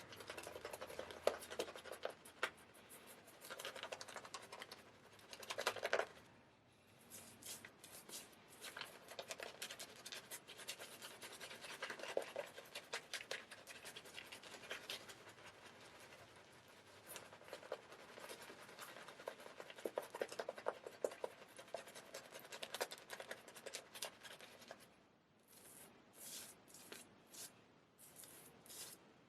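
Straight razor scraping through stubble in repeated strokes, a dense fine crackling scratch with short pauses between passes.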